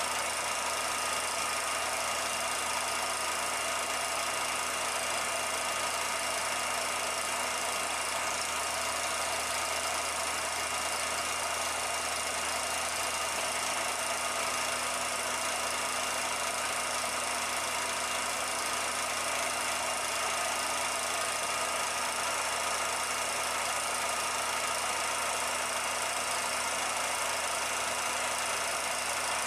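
Steady machine noise: an even whirr with a few constant tones over it.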